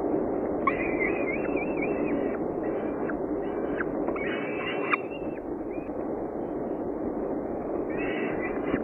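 Falcon chicks giving thin, wavering begging calls while being fed, several short bouts, over a steady low rushing noise.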